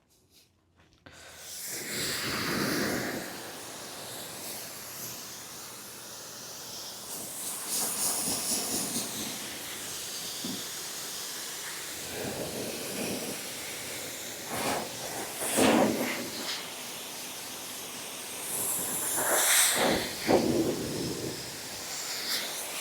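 Steady hissing, as from a spray of a detailing tool, that swells louder several times and eases back between.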